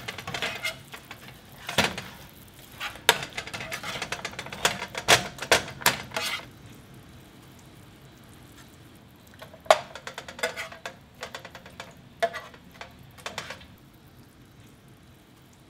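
Spatula scraping and tapping in a nonstick frying pan of sticky sauce, with light clatter as fried fish pieces are turned and lifted onto a plate. Busy clicks and scrapes for about the first six seconds, then a quieter spell and a few more taps.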